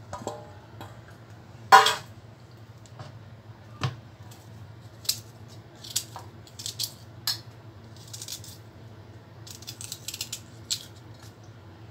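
A kitchen knife scraping the skin off a piece of ginger and cutting it over a steel mixer jar, in short runs of scraping strokes, with light clinks of the pieces and knife against the steel. There is one loud metallic clatter about two seconds in.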